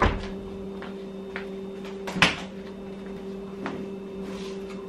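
Front-loading clothes dryer door clicked open, with one sharp click about halfway through and a few softer knocks as laundry is handled, over a steady low hum.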